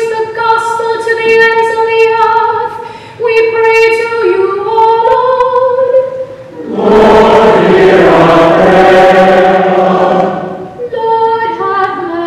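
Church choir singing, a few sustained lines at first, then fuller and louder singing from about seven seconds in that eases off near the end.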